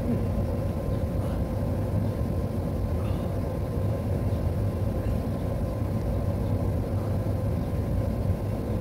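Steady low background rumble with a faint constant hum, unchanging throughout.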